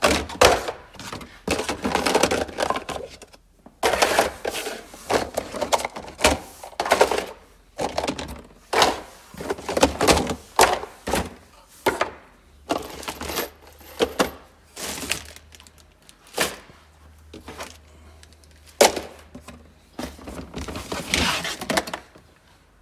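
Hard plastic stacking storage bins clattering and knocking against one another as they are handled and stacked, in a quick, irregular run of knocks, with a cardboard box being shifted near the end.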